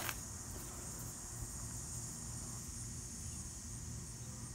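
Steady, high-pitched chirring of insects in the background, with a faint low hum. A single brief click sounds at the very start.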